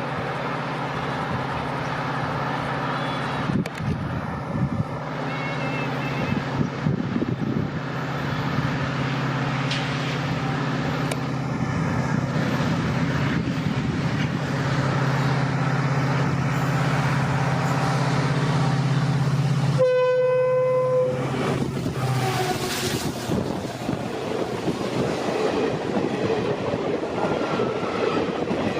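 Diesel locomotive running with a steady low engine drone over the rattle of the train on the track. About 20 s in, the horn sounds one blast of about a second and a half. Soon after, the engine drone drops away, leaving the wheels clattering over the rail joints.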